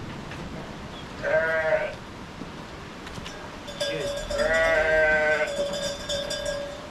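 Goat bleating twice: a short wavering call about a second in and a longer one near the middle.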